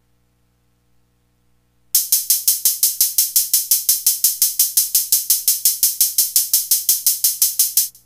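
Roland TR-6S drum machine playing a fast, steady hi-hat pattern, about seven hits a second, starting about two seconds in and falling to faint ticks at the very end. Before it, only a low electrical hum.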